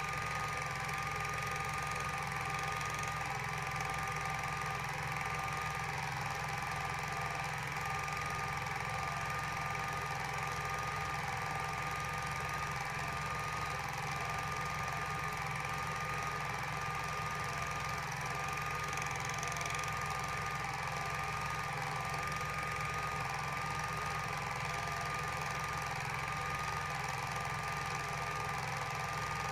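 Super 8 film projector running: a steady mechanical whirr with a thin whine that wavers slightly in pitch.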